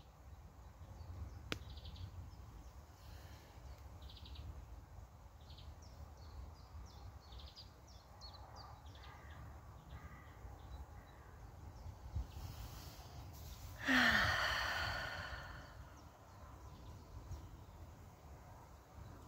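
A woman's long sigh about two-thirds of the way through, starting with a brief voiced sound that falls in pitch and trailing off as a breathy exhale. Earlier, faint high bird chirps come over a steady low rumble.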